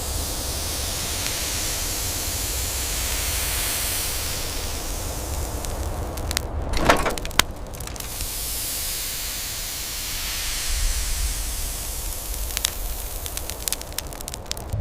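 Steady rushing hiss over a low rumble, with a brief swell and two sharp cracks about seven seconds in, and a few sharp clicks near the end.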